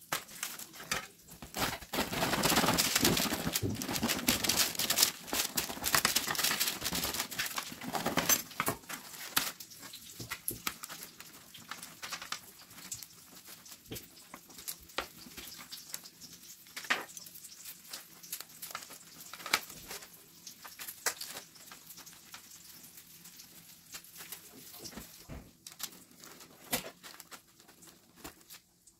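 Knife and spoon cutting and scraping the soft crumb out of round homemade bread loaves, with crust crackling. A loud stretch of dense scraping runs from about two to eight seconds in, followed by scattered scrapes and taps.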